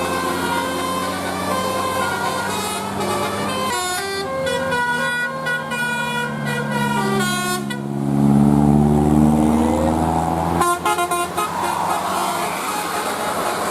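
Bus telolet musical air horn, a Basuri multi-trumpet horn, playing a quick tune of changing notes. About eight seconds in it gives way to a louder, deeper horn blast with some bending pitch, which breaks off stuttering a few seconds later.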